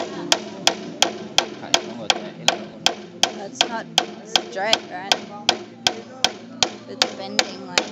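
Steady hammer blows, about three a second, driving a thin bamboo pin into a bamboo pole.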